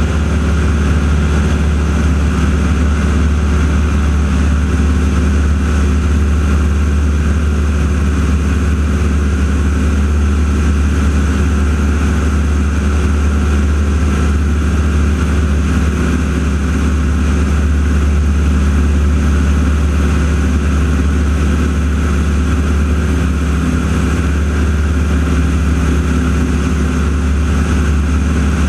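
North American T-6 Texan's radial piston engine and propeller running steadily at constant power in flight, a loud, even drone with no change in pitch.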